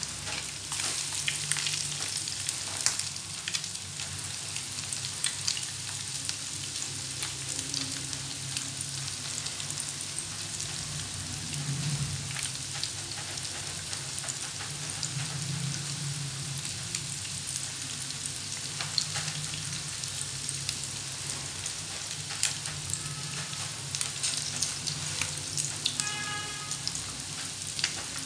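Potato-and-minced-meat croquettes sizzling in shallow hot oil in a nonstick frying pan, a steady hiss with many small crackling pops.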